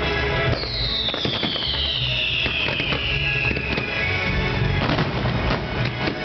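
Fireworks display: a dense run of sharp pops and bangs from bursting shells and rising comets over the show's music, with a high whistle sliding slowly down in pitch for a few seconds starting about half a second in.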